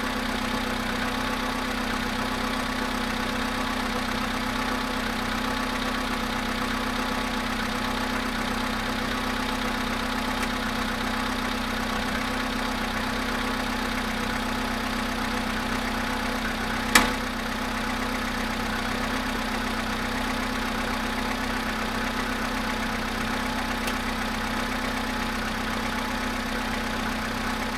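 Volkswagen Polo sedan engine idling steadily with the knock the owner is recording after a cold start, the car having stood 13 hours at about 0.5 °C. One sharp click about 17 seconds in.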